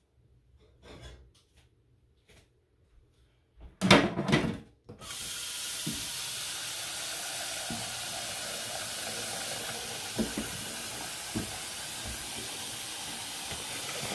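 A brief loud clatter of cookware being handled, then a faucet turned on and running steadily, with a few soft knocks as things are moved in the sink.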